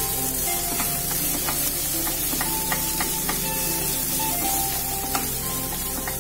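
Silicone spatula stirring and scraping a thick grated bottle-gourd and milk mixture in a nonstick pan, with a low sizzle as it cooks, over background music.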